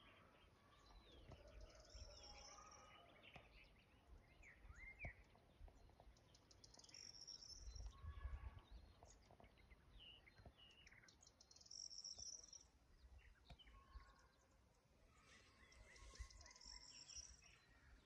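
Faint birdsong: songbirds chirping in short calls and quick rising and falling notes, with wind rumbling on the microphone now and then.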